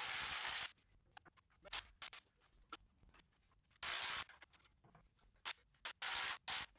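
Several short rasping scrapes, with faint clicks and knocks between them, as a front differential is worked into place on a wheeled low-lift transmission jack.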